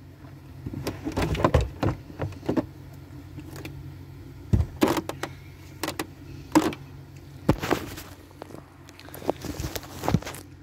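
Plastic boot side trim of a BMW E91 being pulled away by hand: irregular clicks and knocks of trim and clips, with rustling of the boot carpet.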